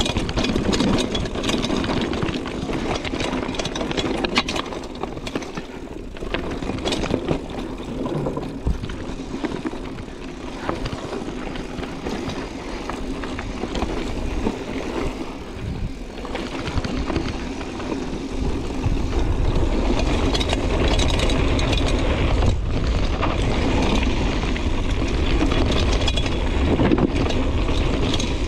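Mountain bike riding down a rough downhill trail: tyres crunching over stones and gravel, with the bike rattling and clattering over the bumps. Wind buffets the microphone, and a low rumble grows stronger about two-thirds of the way through.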